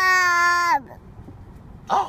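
Young child's drawn-out high-pitched monster cry, held at one steady pitch and dropping away as it ends a little under a second in, followed by a short vocal burst near the end.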